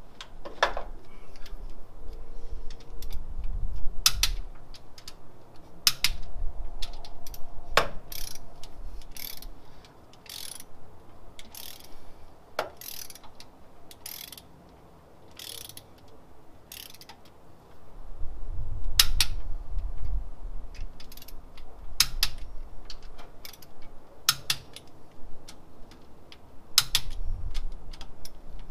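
Ratcheting torque wrench clicking in uneven spells as the LS1's rocker arm bolts are retorqued to 22 foot-pounds, with a few dull knocks of the tool against the engine.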